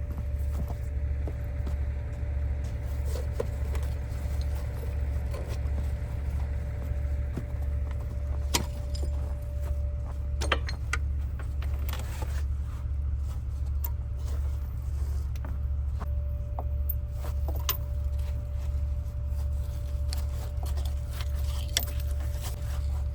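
A logging truck's diesel engine drones steadily with a low throb, alongside scattered light rattles and clicks.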